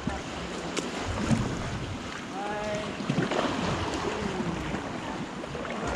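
Wind buffeting the microphone over water lapping and splashing around a paddled sea kayak, with a few sharp ticks from the water.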